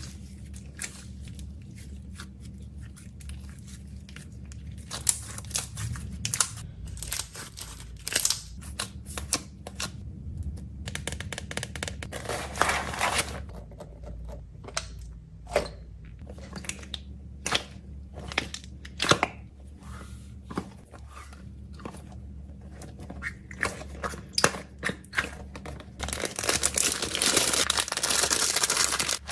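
Plastic wrappers and packaging being handled: crinkling, tearing and scattered sharp clicks and taps, turning into louder, continuous crinkling near the end.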